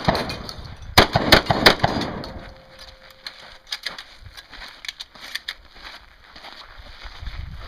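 Shotgun shots in competition: a quick string of loud blasts about a second in, each with a trailing echo. Then come several lighter, sharp clicks and knocks spread over the next few seconds.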